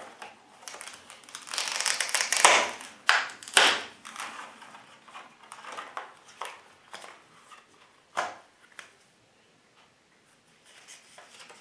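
Clear plastic blister pack being pulled off its cardboard backing and handled: crackling and crinkling of stiff plastic, with a run of loud sharp cracks in the first four seconds and one more about eight seconds in, then quieter handling.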